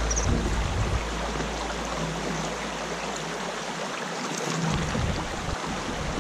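Steady rush of flowing stream water. A low sustained note of background music dies away over the first few seconds.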